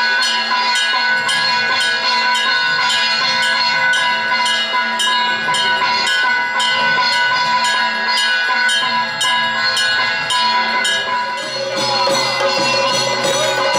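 Temple bells ringing during aarti, struck in a fast even rhythm of about three strikes a second over a steady ringing tone. Near the end the strikes stop and a steady tone with wavering pitch carries on.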